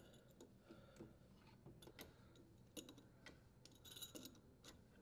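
Near silence with faint, irregular clicks and light scrapes as a dishwasher's threaded leveling leg is adjusted, by hand and then with a wrench.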